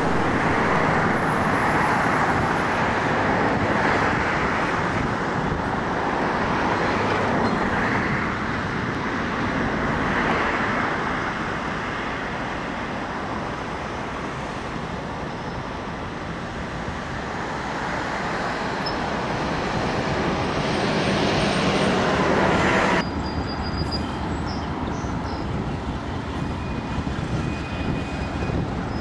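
Diesel locomotives running light past, a steady mix of engine and wheel-on-rail noise that swells and fades slightly. About 23 seconds in it cuts abruptly to a quieter outdoor background.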